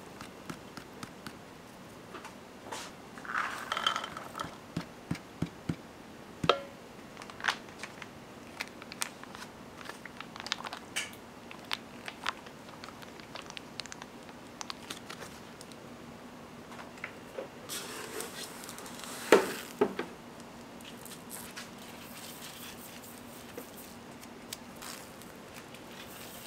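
Food-prep handling around a large stainless steel mixing bowl: scattered clicks and knocks as chopped vegetables, mayonnaise and seeds are tipped in, with one louder clatter about nineteen seconds in. A faint steady hum runs under the later part.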